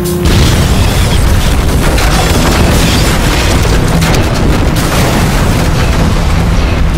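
Car explosion: leaking cyclohexane vapour ignites in a sudden blast about a third of a second in, followed by the continuous rush of the fireball and burning car.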